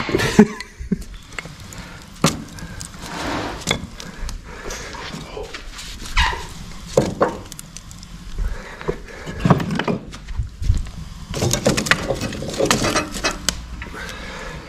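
Wooden offcuts and kindling knocking and clattering as they are picked up and loaded into a log burner, in scattered knocks with a busier flurry about eleven seconds in.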